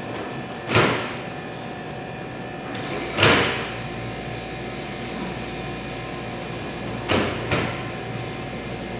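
A metal scraper pushed hard across a chocolate-coated work table, scraping up chocolate fans: four short, sharp scraping strokes, one about a second in, one near the middle, and two close together near the end. A steady background hum runs underneath.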